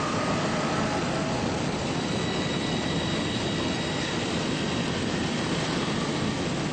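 A steady, loud rushing roar with faint high whistling tones over it: a dramatic sound effect.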